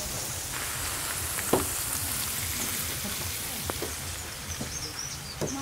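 Pieces of wallago fish sizzling in hot oil in a large aluminium tray over a wood fire: a steady frying hiss. A few sharp knocks, the loudest about one and a half seconds in.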